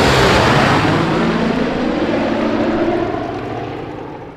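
Droning engines of a propeller-driven aircraft in flight, with a steady low hum over a broad rushing noise, fading out over the last second or so.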